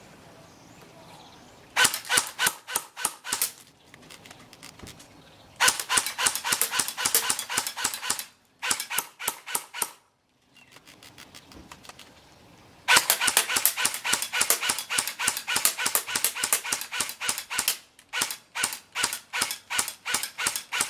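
Cyma AK74 airsoft electric rifle firing on semi-auto, a sharp snap with each shot, several shots a second in about five strings with short pauses between.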